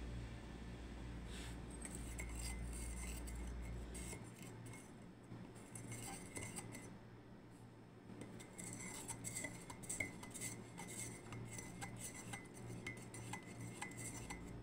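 Foil butter wrapper crinkling, with small scattered clicks and taps as pieces of butter are broken off and dropped onto rice in a steel pot. A low hum stops about four seconds in.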